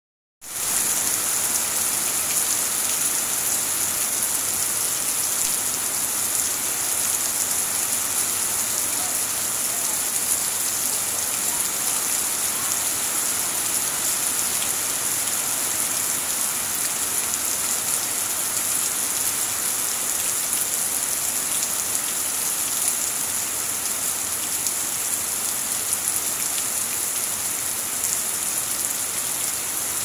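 Heavy rain falling on broad banana leaves and dense foliage: a steady, even hiss that starts abruptly about half a second in.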